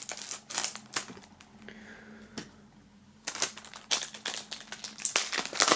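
A knife slitting the plastic shrink-wrap along the edge of a CD jewel case, with a few scattered ticks. About halfway in, dense crackling starts as the film is peeled off by hand.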